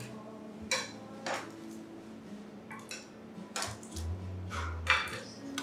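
Dishes and metal utensils clinking at a bakery counter: a handful of separate sharp clinks, a second or more apart.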